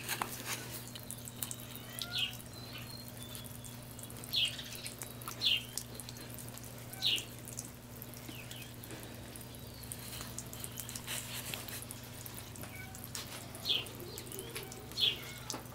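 A thin jet of water from a garden hose nozzle spraying and splashing into a large water tub, a steady watery patter with a low hum beneath it. About six short, high chirps come through at intervals.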